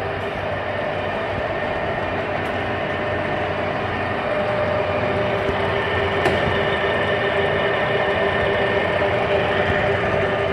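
Summit heavy-duty engine lathe running under power, a steady mechanical hum with whining gear tones, getting a little louder about four seconds in.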